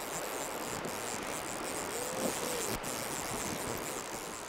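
Steady rush of flowing river water, with a single faint click a little past halfway.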